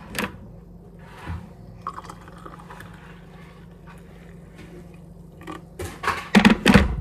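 Water poured from a kettle into a ceramic mug, a faint steady trickle, after a sharp knock at the start. Near the end come several loud knocks and thuds as the kettle is set back down on the counter.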